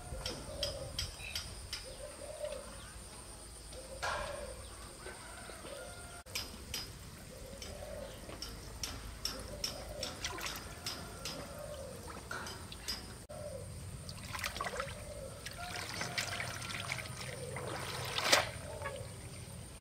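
Water sloshing and trickling, with many small sharp clicks and knocks throughout and a steady high-pitched hum.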